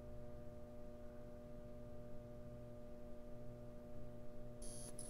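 Faint, steady drone of several held tones at once over a low hum, with a thin high whine briefly joining near the end.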